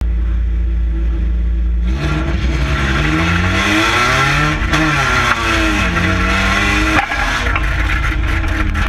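A 2-litre stock car engine heard from inside the stripped cabin, running steadily at first. About two seconds in, the revs start climbing and falling again and again as the car is driven hard. A few sharp knocks come near the end.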